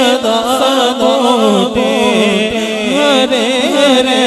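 A man singing a naat, an Urdu devotional poem, into a microphone in long, ornamented phrases whose pitch bends and wavers.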